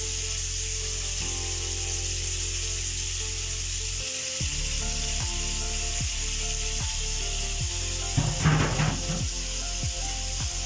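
Pieces of spiced king fish frying in oil on a hot iron tawa, a steady sizzling hiss. About eight seconds in, a brief burst of louder clattering and scraping from the pans stands out above the sizzle.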